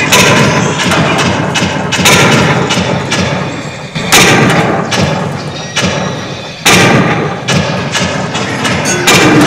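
Shooting-gallery rifles firing: loud gunshot sound effects, five of them about two seconds apart, each dying away slowly, with lighter knocks and hit effects in between.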